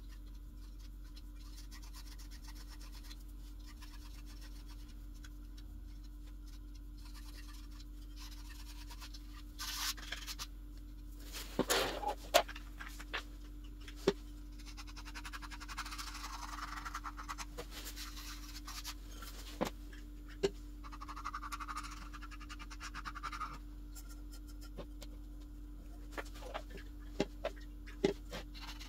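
Rubbing and scraping at a loudspeaker woofer during foam-edge replacement work, with scattered sharp clicks and knocks from handling the parts. A steady low hum runs underneath.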